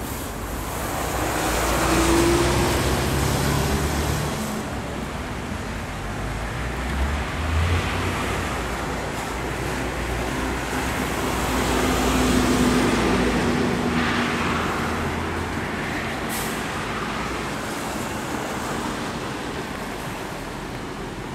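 Road traffic passing on a multi-lane street, with engines humming and tyres hissing. It swells as vehicles go by about two seconds in and again around twelve seconds in, and there is a brief hiss near sixteen seconds.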